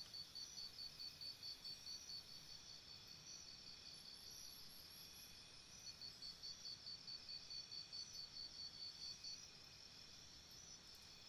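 Crickets chirping faintly: one cricket's high chirps in an even train of about five a second stop for about three seconds and start again, over fainter crickets chirping at other pitches.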